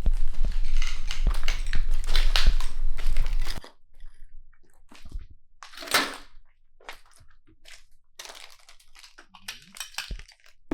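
Footsteps crunching over debris on the floor, dense for the first few seconds with a low rumble under them. Then a sudden drop to scattered quieter crunches and clicks, with one louder crunch about six seconds in.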